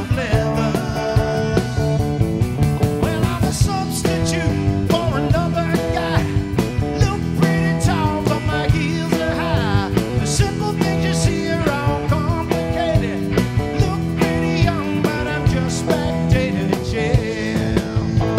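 Rock band playing a sixties rock number, with drums, bass and electric guitar.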